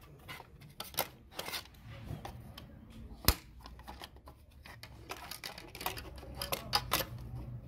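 Plastic belt cover of an industrial sewing machine head being fitted by hand: scattered light clicks and rustling of plastic, with one sharp click about a third of the way in and a quick run of clicks near the end.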